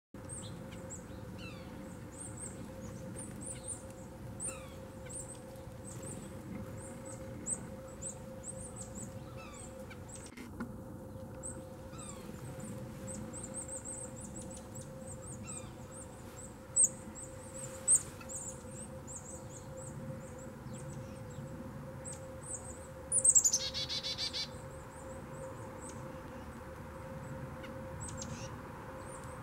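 Small songbirds calling with many short, high, thin chirps, and a loud burst of rapid falling call notes about 23 seconds in. Two sharp knocks a second apart sound near the middle, over a steady low hum.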